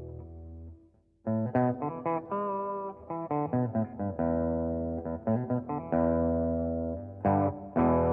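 Electric guitar played through a Techniguitare Custom Screamer V2, a Tube Screamer-style overdrive pedal, into the clean channel of a Line 6 Spider 30 amp. A ringing chord dies away, followed by a brief gap, then a quick run of picked notes and chords. Near the end a chord is struck and left to ring.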